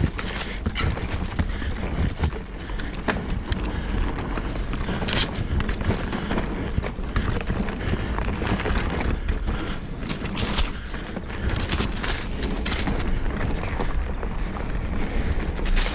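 Mountain bike ridden fast down rough dirt singletrack: tyre noise over dirt with frequent rattles and knocks from the bike hitting bumps, over a steady low rumble.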